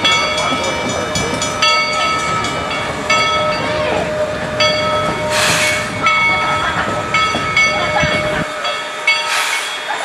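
A bell ringing over and over, about two strokes a second, alongside steam locomotive No. 12, with two short sharp hisses of steam about five and a half and nine seconds in.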